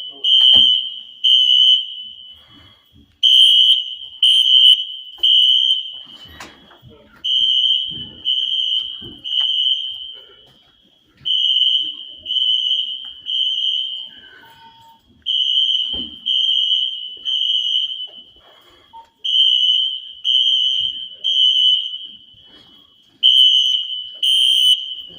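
Wheelock fire alarm horns sounding the temporal-three evacuation signal: three short, loud, high-pitched blasts, a pause, then three more, repeating about every four seconds.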